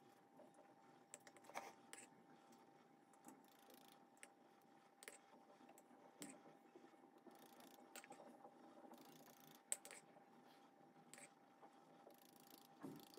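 Faint, irregular light clicks and taps of a fine-mesh metal sieve being shaken and tapped as flour is sifted into a glass bowl.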